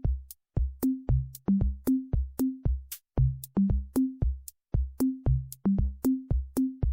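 Electronic background music: a drum-machine beat of short, sharp hits, each with a brief low bass note, the notes stepping upward in a repeating three-note figure.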